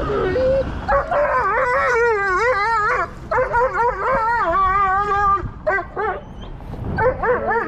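A dog howling: long, wavering howls that rise and fall in pitch, then a few shorter howls near the end.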